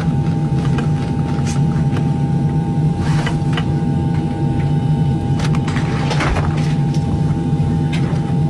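Steady low drone of an airliner cabin with a constant high whine above it, and scattered light clicks and rustles near the microphone.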